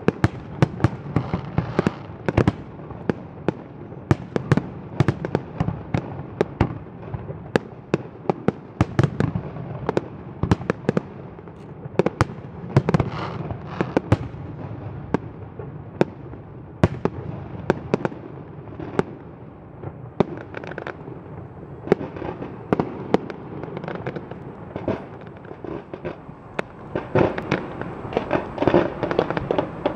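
Fireworks display: aerial shells bursting in quick succession, many sharp bangs over a continuous low rumble, with a dense flurry of bangs near the end.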